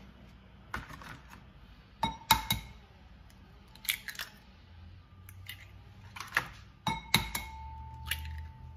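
An egg tapped on the rim of a bowl and its shell cracked and pulled apart by hand: a series of sharp clicks and crunches, some in quick pairs. A knock near the end leaves a faint ringing tone for about a second and a half.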